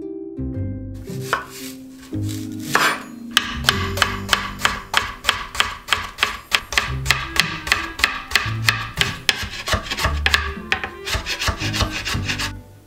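Kitchen knife chopping a green onion finely on a cutting board: quick, even strokes about four to five a second, over soft background music.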